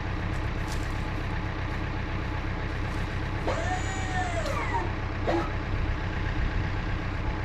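Truck engine idling steadily. About three and a half seconds in, a brief pitched sound rises and falls over it, with a shorter one just after.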